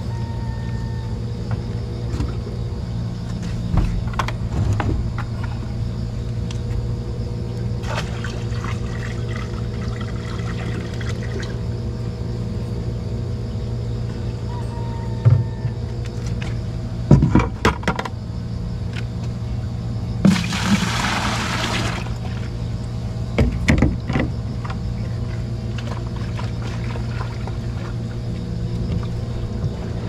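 A motor runs steadily underneath water being scooped, splashed and poured by hand between a plastic bucket and a spray tank while powdered pesticide is dissolved. There is a longer pour of water about two-thirds of the way through, and several knocks of the plastic scoop and bucket.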